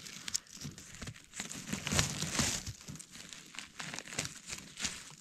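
Rustling and crackling of dry forest-floor litter, leaves, moss and small twigs, being stepped through or handled, with irregular sharp snaps and a louder patch of rustling about two seconds in.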